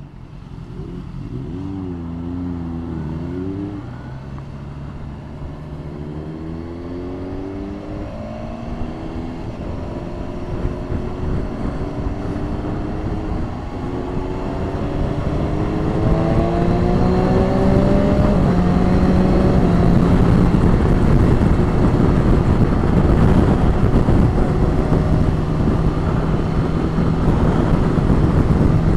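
Motorcycle engine accelerating hard through the gears, its pitch rising in about three successive climbs with drops between at each gear change, then settling to a steady cruise. Wind rush grows louder as speed builds.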